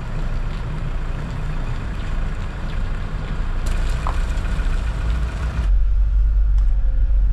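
Motorhome engine running as the van pulls out and drives past. About two-thirds of the way through, the sound switches to the engine's low rumble heard from inside the cab.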